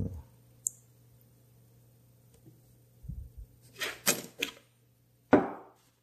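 Light clicks and handling noise of small metal lighter parts, a vintage Ronson gas lighter's gear and spring assembly being fitted back together by hand. A single click comes early, a quick cluster of clicks about four seconds in, and a louder bump about five seconds in.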